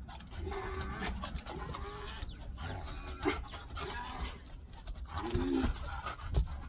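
Dogs playing tug-of-war with rope toys, panting, with a few short vocal noises and the scuffle of the toys.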